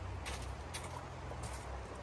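Footsteps crunching on icy snow, a few paced steps about half a second apart, over the steady rush of a shallow river.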